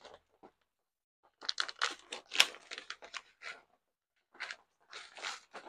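Small paper packet being torn open and crinkled by hand, in irregular rustling spells that start after about a second and a half of quiet.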